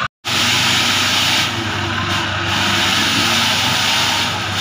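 Off-road 4x4's engine running steadily as it drives up a muddy trench, with a loud, even hiss over the engine.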